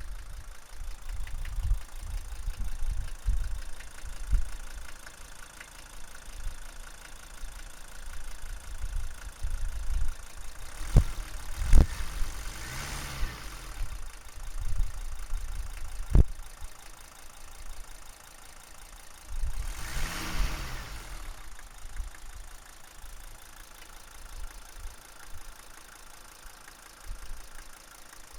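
Mercedes W123 300D's OM617 five-cylinder diesel idling, heard at the exhaust with an uneven low chuffing, the strange exhaust noise the owner is showing. The revs swell up and fall back twice, and a few sharp clicks stand out.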